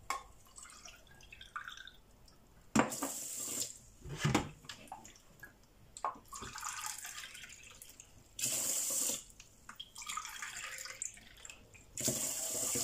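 Kitchen tap water running into a stainless-steel sink in several short bursts, with splashing and swishing of water in a pot as rice is washed by hand between them.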